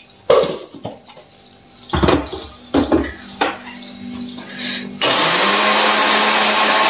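A few knocks as fried puri pieces are tipped into an electric mixer grinder jar and it is closed. About five seconds in, the mixer grinder starts abruptly and runs loudly and steadily, grinding the fried puris to a coarse powder.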